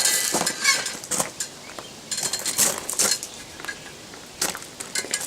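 Blacksmith's hammer striking a hot steel bar over the edge of an anvil, a run of irregular blows with a faint metallic ring, bending the start of a scroll.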